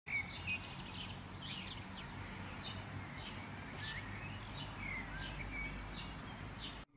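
Faint outdoor birdsong: several small birds chirping, with many short calls and a few whistled slurs, over a low background hum. It cuts off abruptly just before the end.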